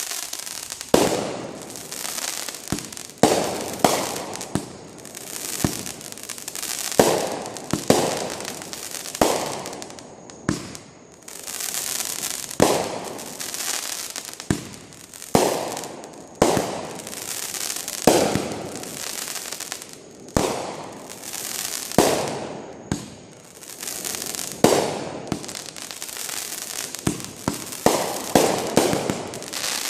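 Fireworks going off one after another: sharp bangs every second or two, each followed by a fading rush of noise, with a quick cluster of bangs near the end.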